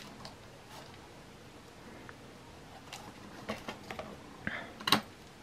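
Gritty potting mix being picked away from a plant cutting with a thin tool and brushed about in a plastic tray: quiet at first, then a scatter of small ticks and scrapes, the sharpest near the end.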